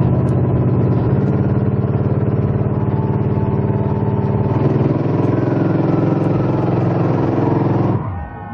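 Pickup truck engines running hard at steady high revs under heavy load as the two trucks pull against each other in a tug of war. The engine note shifts about halfway through and drops off sharply near the end.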